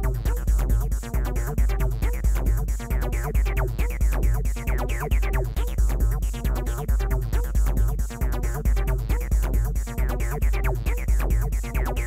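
Electronic background music with a steady beat and heavy bass.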